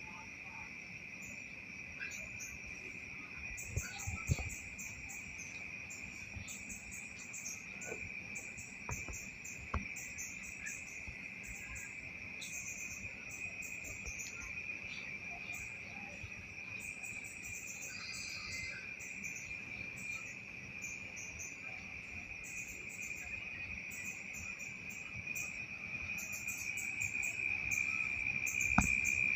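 Night insects chorusing: a steady, high, unbroken trill with rapid repeated chirping above it. A few brief knocks sound about four seconds in, around nine to ten seconds, and near the end.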